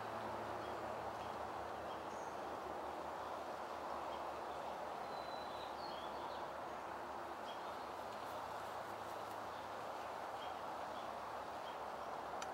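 Steady outdoor background rush with a few faint, short bird chirps scattered through it.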